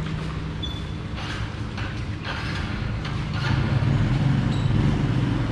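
Motor vehicle engine running steadily, getting louder about three and a half seconds in.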